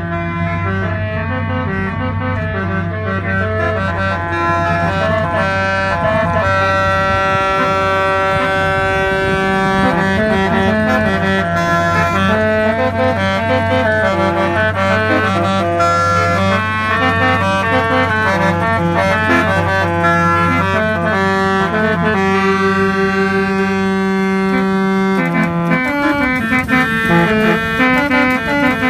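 Musical car horn playing a tune of held, reedy notes, several sounding together and changing every second or so, over a steady low hum.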